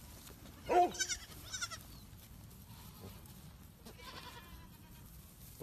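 A baby goat bleats once, a short call just under a second in, followed by two brief high, wavering calls.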